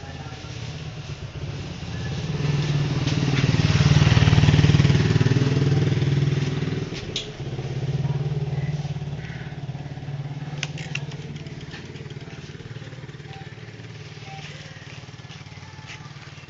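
A motor vehicle's engine passing close by, getting louder to a peak about four seconds in and fading away, then a second, quieter swell about eight seconds in.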